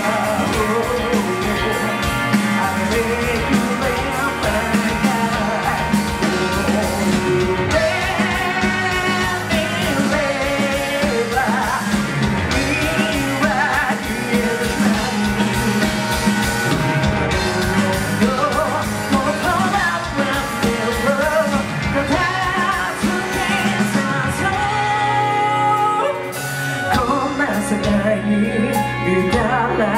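Live rock band playing: a lead singer over electric guitar, bass guitar and a steady drum beat. The drums and bass drop out for about two seconds near the end.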